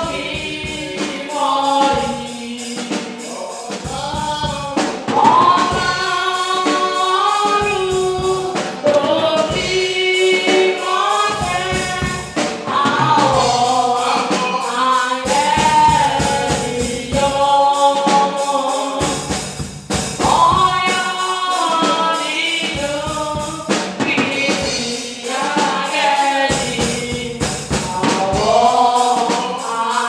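Church choir and congregation singing a gospel song together, with percussion beating along.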